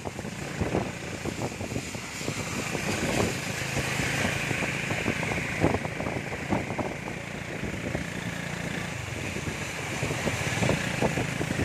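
Heavy rain heard from a covered tricycle sidecar: a steady hiss of rain and tyres on the wet road with a low engine drone, and scattered taps of raindrops on the canopy and plastic curtain.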